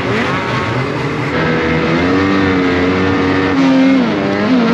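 Snowmobile engine running under throttle, its pitch holding fairly steady, then dipping briefly near the end and rising again as the throttle is eased and reopened.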